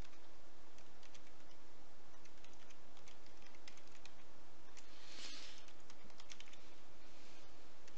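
Typing on a computer keyboard: a run of quick key clicks over the first four seconds or so, then a short burst of hiss about five seconds in.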